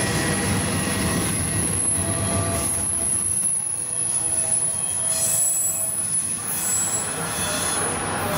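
Double-stack intermodal freight cars rolling past on steel rails, the wheels squealing in several thin held tones over a steady rumble. The low rumble thins after about three seconds as the end of the train passes.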